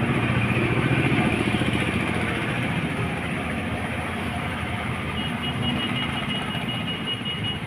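Steady machine noise with a low hum, with a faint high tone joining about five seconds in.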